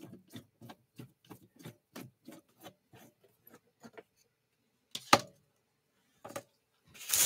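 Small screwdriver working screws out of an antique Dictograph intercom's metal case: a run of light, evenly spaced ticks, about three a second, then a few scattered clicks and a sharper knock about five seconds in. A rustling bump on the microphone right at the end.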